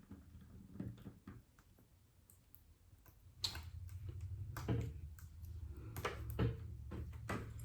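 Scattered light clicks and taps of a repair tool and fingers on a tablet's glass and frame. A low hum comes in about three and a half seconds in.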